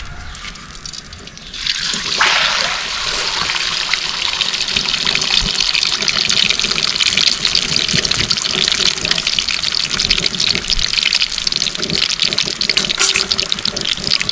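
Whole marinated chicken going into hot oil about two seconds in, setting off a loud, steady sizzle with fine crackling as it deep-fries.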